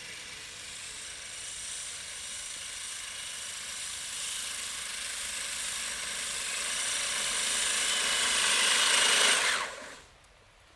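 3D-printed RC screw-tank's electric drive motors and gearbox running with a high whine, getting louder as it approaches. Near the end the pitch falls quickly as the motors wind down and it stops.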